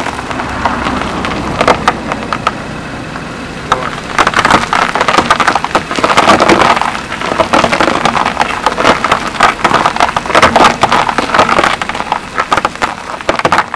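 Sugar cubes crunching and crackling as a car tyre rolls slowly over them, a dense run of sharp cracks that grows louder about four seconds in.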